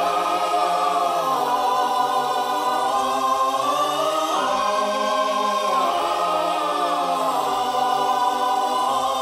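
Music: a wordless choir holding sustained chords that shift a few times, with no beat.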